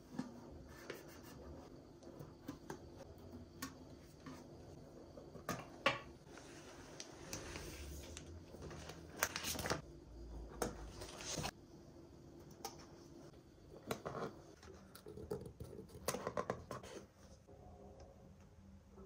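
Faint handling sounds of a paper sticker sheet rustling and stickers being peeled off and pressed on, with scattered light clicks and taps of jar lids.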